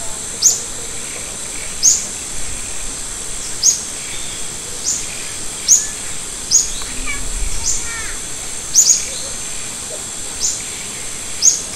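Birds chirping outdoors: one short high chirp repeats about once a second over a steady high hiss, and a different, lower bird call comes briefly in the middle.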